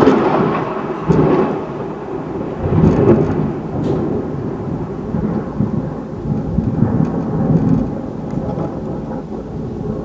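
Close thunder: a sudden sharp crack from a nearby lightning strike, then a long rolling rumble that swells several times and slowly fades.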